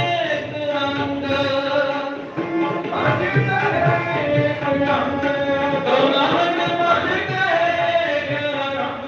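Shabad kirtan: a harmonium holding sustained notes under a gliding sung melody from male voices, with tabla strokes keeping the rhythm.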